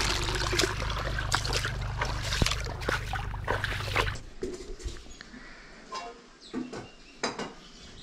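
Water running and splashing down a narrow earthen irrigation channel, a dense steady noise that cuts off abruptly about four seconds in. After that it is much quieter, with a few scattered light clicks and short chirps.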